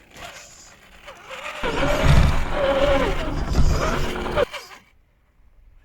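Brushed electric motor of a Traxxas Summit RC truck whining as it drives, faint at first, then loud for about three seconds with the pitch wavering over a heavy rumble of the truck running over the ground, stopping suddenly about a second before the end.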